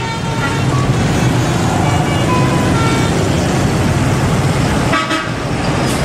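Tour bus engine running as the bus pulls past, with short notes of its telolet musical horn sounding over it. About five seconds in there is a click and the sound changes abruptly.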